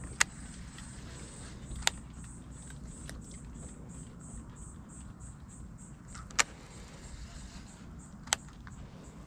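Steady low rumble of wind on the microphone, broken by four sharp clicks, two in the first two seconds and two more near the end, over a faint high hiss.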